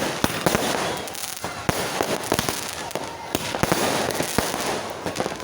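Fireworks going off: many irregular sharp bangs a fraction of a second apart over a dense crackle.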